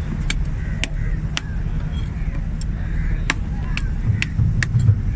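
A large knife working a fish on a wooden chopping stump, each stroke a sharp click: about eight at irregular intervals.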